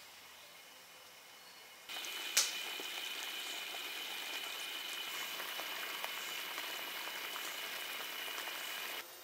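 A pot of liquid boiling, bubbling and crackling steadily. It starts suddenly about two seconds in, with a sharp click just after, and cuts off near the end.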